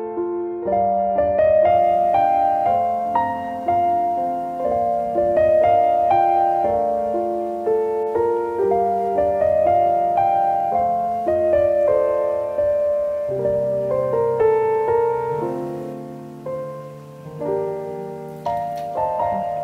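Background solo piano music: a gentle melody of held notes.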